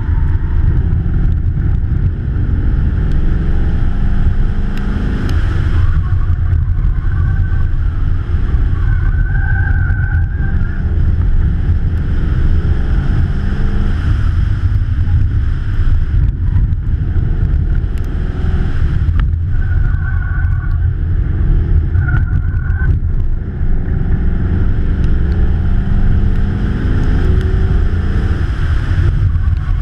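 Heavy wind buffeting on a hood-mounted camera's waterproof housing over the 1996 Lincoln Mark VIII LSC's V8 running under hard driving, its revs rising and falling, with a few brief high squeals. The engine has two bad valve springs.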